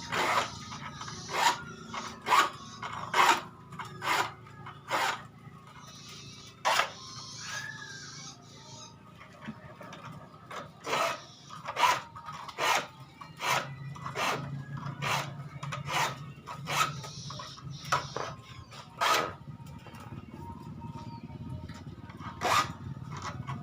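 A hand file rasping across the steel teeth of a hand saw in short, uneven strokes, about one a second, sharpening the dull blade.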